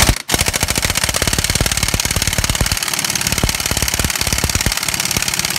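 Impact wrench on a 13/16 socket hammering out a lower strut bolt on a minivan's front suspension: a short blip, then a steady, rapid rattle of blows.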